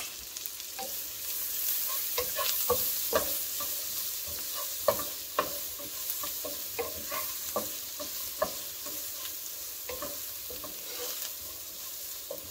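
Bacon and sliced onions sizzling in a nonstick skillet, stirred with a wooden spatula that scrapes and taps against the pan at irregular moments.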